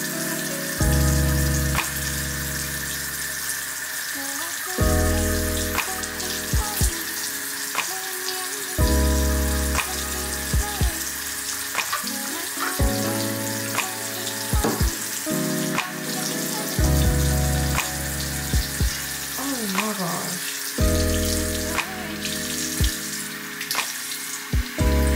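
Bathroom tap running steadily into a sink, a continuous water hiss, under background music with a mellow beat whose chords change about every four seconds.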